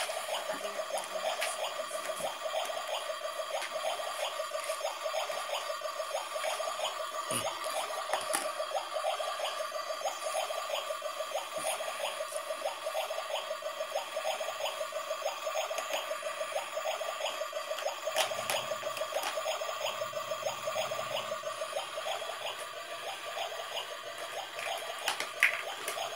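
Battery-powered toy stove playing its electronic cooking sound effect through a small speaker, a steady looping tone that pulses at an even rhythm while its light-up burners are switched on.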